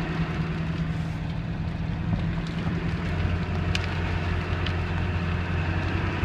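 Vehicle engine running as it drives along a gravel road, heard from inside the cab; its low hum drops to a lower note about halfway through, with a few faint ticks.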